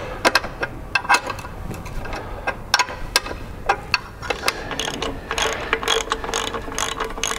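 Rapid, irregular metallic clicks and clanks as an outboard gearbox (lower unit) is lifted and fitted back onto the leg, its greased driveshaft splines going back in.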